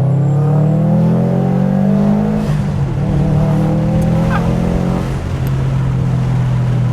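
Subaru WRX STI's turbocharged flat-four, fitted with an aftermarket downpipe and cat-back exhaust, pulling hard under acceleration: the engine note rises, drops sharply at a gear change about two and a half seconds in, rises again, and drops at a second shift about five seconds in.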